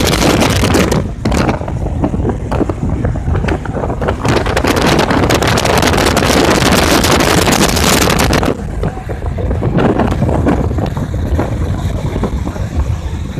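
Road and wind noise inside a van moving at highway speed: a loud, steady rushing with a low rumble. The high hiss drops noticeably about eight and a half seconds in, leaving mostly the lower rumble.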